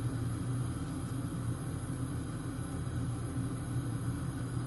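Steady low rumble and hiss from a pan of hot seasoned water heating on a gas stove, with no change through the stretch.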